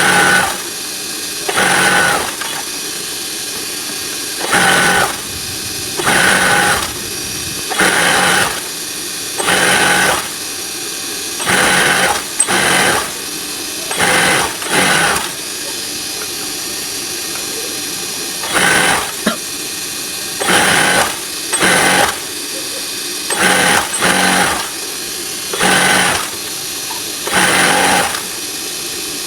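Electric sewing machine stitching in short bursts, about one every one to two seconds, with a steady motor hum between them.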